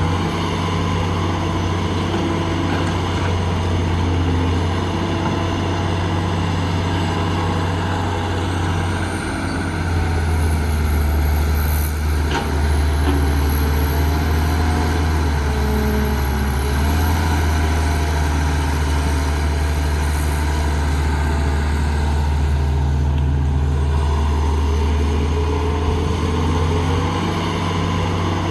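Heavy diesel engines of earthmoving machinery running steadily at work, the low engine note shifting as the load changes about a third of the way in and again past the middle. A faint high whine runs over the engine sound.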